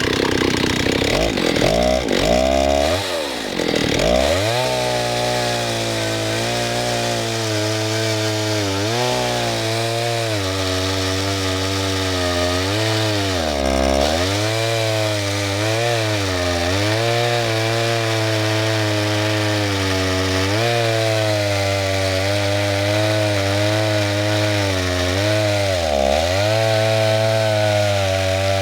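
Stihl 08 S two-stroke chainsaw running at high speed while cutting wood, its engine pitch dropping sharply and recovering a few times under load: about three seconds in, around the middle and near the end.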